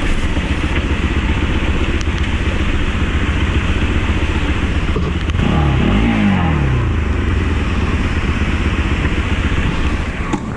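Motorcycle engine running as the bike rides over a rocky dirt trail. About halfway through, the engine revs up and falls back.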